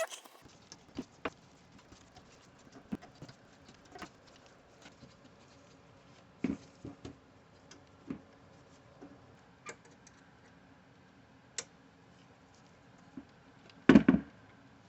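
Irregular light clicks and taps of a screwdriver and small parts being handled, with a louder clatter of knocks near the end.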